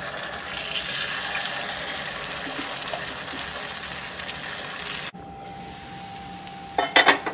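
Kuzhipaniyaram batter sizzling in hot oil as it is ladled into the cavities of a paniyaram pan. The sound drops suddenly about five seconds in to a quieter, steady sizzle.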